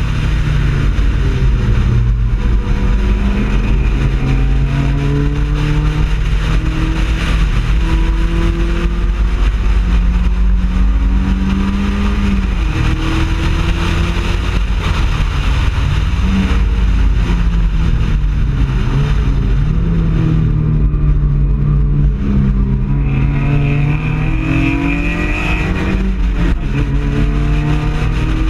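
Mazda Miata race car's four-cylinder engine heard on board at racing speed, pulling hard and rising in pitch through the gears with a short break at each upshift. A bit past two-thirds of the way through the revs drop away as it slows and downshifts for a corner, then it accelerates hard again, all over steady wind and road noise.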